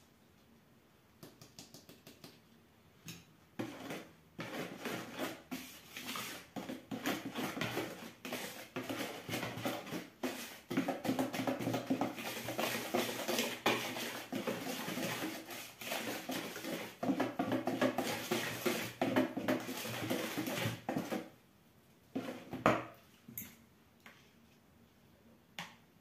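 Red plastic flour sifter being worked over a plastic mixing bowl: a long, rapid, continuous rattling and scraping as the flour is sifted, followed by a few separate sharp knocks near the end.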